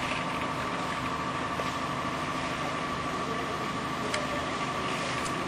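Steady machinery hum of a concrete block making plant, with a steady high tone over the noise and a couple of sharp clicks near the end.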